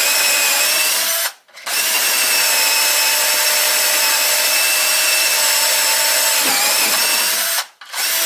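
Power drill with a right-angle drive attachment boring up into a wooden 2x4, its motor whining steadily. It stops briefly about a second and a half in and again near the end, restarting each time. The drive spins slowly and the old bit is dull, so the cut is slow going.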